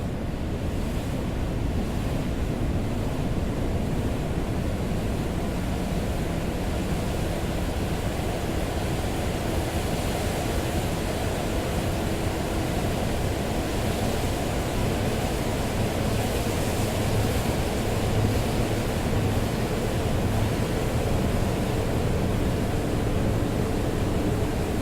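Beach recording of wind and surf, processed into a steady, dark wash of noise heavy in the low end. The higher hiss grows a little in the first few seconds, then holds.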